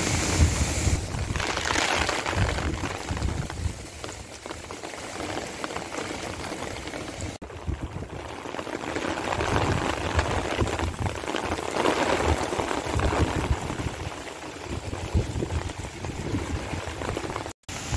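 Monsoon rain falling on pavement and a wet street, a dense steady hiss that swells and eases in waves as the rain picks up. Gusting wind buffets the microphone with a low rumble.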